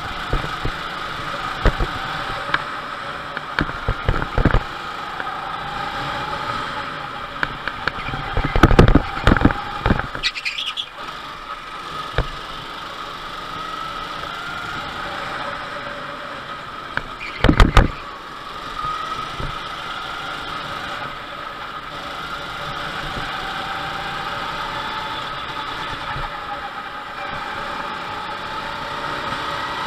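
Go-kart engine heard from on board, running under load with its pitch falling and rising through the corners and climbing steadily along a straight near the end. Loud knocks come about nine and eighteen seconds in, with a brief squeal around ten seconds.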